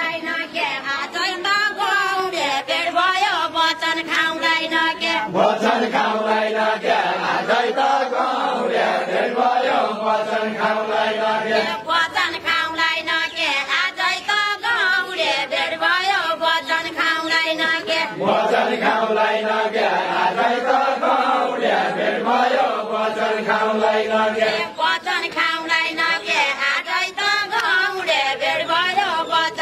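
A group of men and women singing a Deuda folk song together in a chant-like style, the sung phrases breaking off and starting again about every six seconds.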